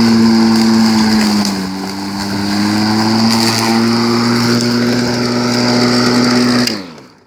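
Homelite UT13124 corded electric lawn mower running with a steady motor hum, its pitch dipping briefly about a second and a half in and then recovering. Near the end the motor is switched off and spins down to a stop, its hum falling in pitch.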